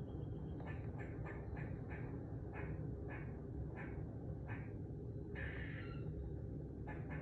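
Squirrel calling: a run of short, repeated calls about two to three a second, with a longer, rougher call about five and a half seconds in.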